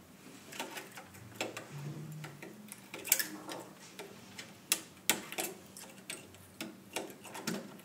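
Irregular small clicks and taps of metal pliers on the pins of an octal valve socket as the pins are squeezed into a circuit board.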